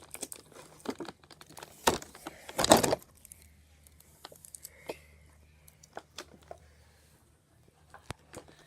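Toy packaging and plastic parts being handled: scattered light clicks and taps, with a louder crackling rustle about two to three seconds in.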